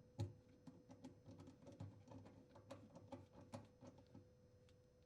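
Faint, irregular clicking and light knocking of the dishwasher's drain hose being fitted and clamped onto the sink drain or garbage disposer inlet, loudest just after the start.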